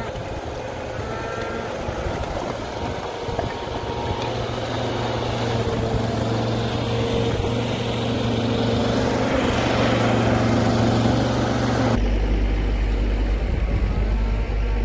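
A farm vehicle's engine running steadily. It grows louder and slightly higher in pitch over the middle stretch, then changes abruptly to a deeper, lower drone about twelve seconds in.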